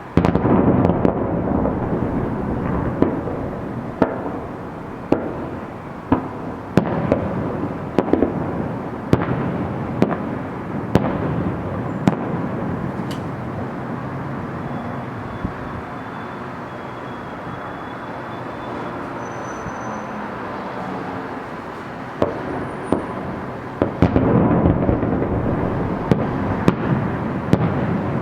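Fireworks salute: aerial shells bursting in a rapid series of sharp bangs over a continuous rumbling wash. The volley starts suddenly, thins to a lighter stretch mid-way, and builds again to a dense barrage in the last few seconds.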